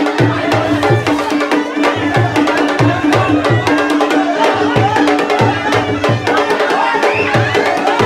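Loud festival music with a driving drum beat under a steady held note.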